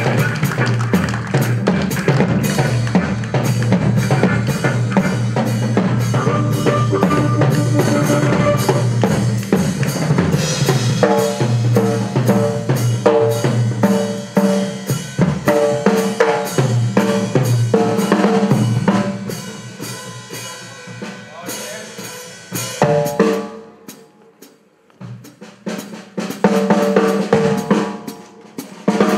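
Blues band playing live, with the drum kit loudest over bass and piano or guitar notes. About two-thirds through the band thins out to a quiet break with the bass dropping out, then the full band comes back in near the end.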